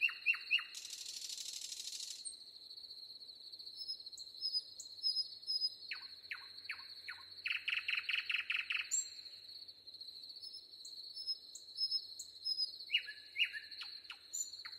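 Small birds chirping in quick runs of short, falling notes over a steady high-pitched whine, with a brief rasping hiss about a second in.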